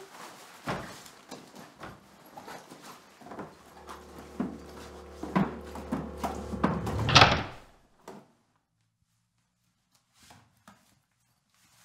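Rummaging in a wooden sideboard: a run of knocks and clatters from the cupboard doors and the objects inside, with a low steady hum joining about halfway through. It all cuts off abruptly just after the loudest clatter, and only a few faint knocks follow.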